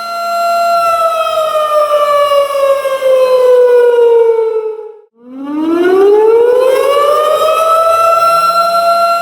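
Tornado warning siren wailing at a steady pitch, then sliding down in pitch for about four seconds, cutting out briefly about five seconds in, and winding back up to its steady wail.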